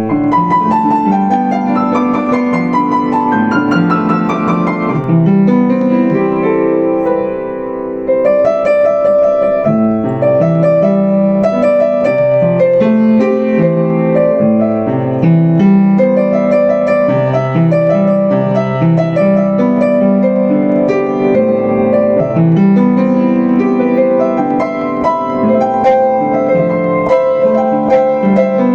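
Solo piano music played on a Yamaha U5 upright acoustic piano: a melody over a rolling left-hand accompaniment. A descending run opens the passage, and the playing eases off briefly just before the eighth second.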